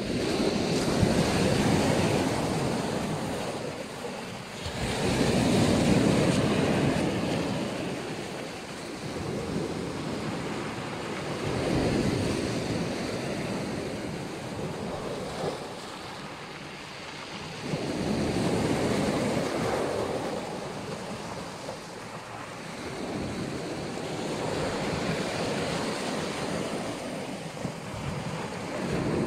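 Black Sea waves breaking and washing on the shore, swelling and falling back in slow surges every five to seven seconds, five in all.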